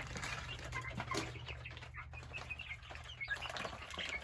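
A flock of young chickens chirping and peeping constantly in many short, overlapping calls. This is hungry chicks calling for food after their feeder has run empty.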